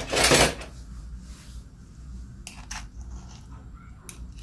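Ice cream scoop scraping and digging into frozen ice cream: one loud crunchy scrape at the start, then a few short, quieter scrapes about two and a half seconds in and again near the end.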